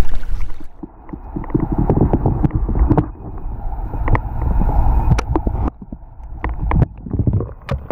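Muffled underwater sound from a camera below the surface: a low water rumble with many scattered clicks and knocks, starting after a cut about half a second in.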